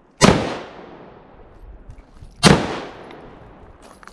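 Two shots from an AK-pattern rifle, about two seconds apart, each followed by a fading echo.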